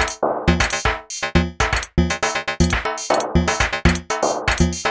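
Electronic drum-machine beat: a repeating pattern of short, sharp drum hits, about two to three a second.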